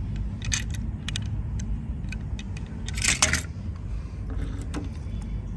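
Small die-cast toy cars handled and set down on a wooden bench: a few light clicks and taps, with a cluster of them about three seconds in, over a low steady rumble.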